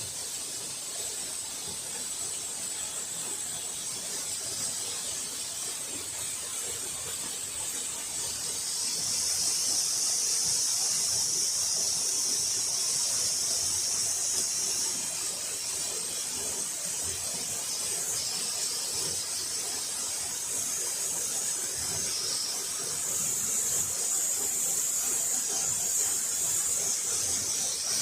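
Waterfall rushing steadily, with a high, shrill steady whine on top that grows louder about nine seconds in and again near the end.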